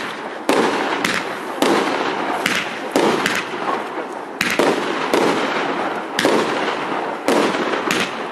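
Super Power 8609 firework cake firing a rapid run of shots, about ten sharp bangs at roughly one or two a second, with a steady hiss between them.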